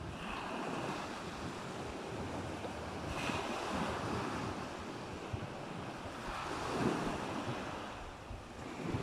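Surf washing on the shore with wind buffeting the microphone: a steady rushing noise that swells about three seconds in and again near seven seconds.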